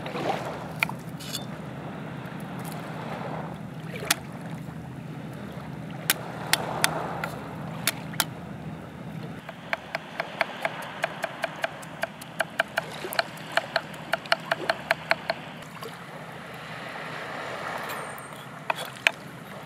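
Chef's knife chopping spring onions on a thick wooden chopping board: a few separate knocks, then a quick even run of chops, about four a second, for some six seconds from about halfway, and two last knocks near the end.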